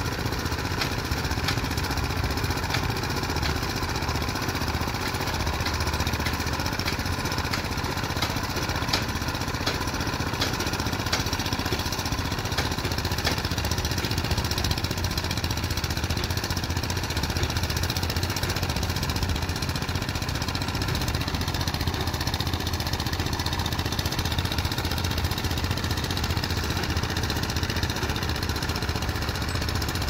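Vibratory plate compactor's small engine running steadily, with a fast rattling pound from the vibrating plate on the dirt.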